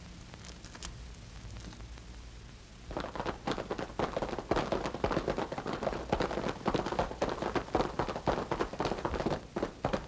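Hoofbeats of galloping horses: a fast, dense clatter of knocks that starts about three seconds in and keeps going, over a low hum.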